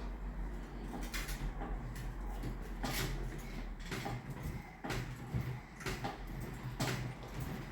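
A handful of separate knocks and clatters, about five spread over several seconds, over a steady low hum.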